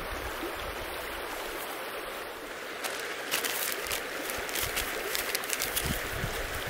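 A river flowing steadily, with short, sharp crackling and rustling sounds from hands handling dry material starting about three seconds in.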